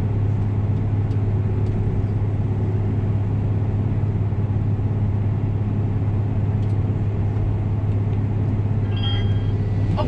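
Case IH 8230 combine running steadily while harvesting soybeans: an even diesel-and-machinery drone with a deep hum, heard inside the cab. A brief high tone sounds near the end.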